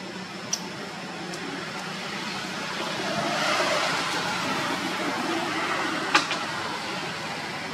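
Outdoor background noise that swells and then slowly fades, with a sharp click about half a second in and a louder click about six seconds in.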